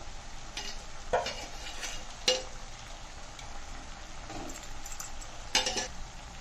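A metal spoon scraping and knocking against a metal kadai as cooked chicken is spread over a layer of rice, giving a few sharp clinks, the loudest about two seconds in and another near the end. Under it, the pot sizzles with a steady low hiss on the stove.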